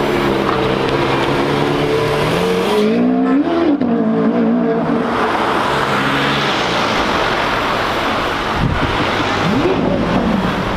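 Supercar engine revving hard as it pulls away, climbing in pitch about three seconds in, then dropping after a brief break. A rush of noise follows in the middle, and there is a second short rev near the end.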